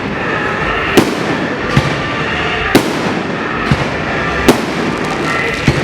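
Fireworks going off: six sharp bangs about a second apart over a continuous noisy background of bursts.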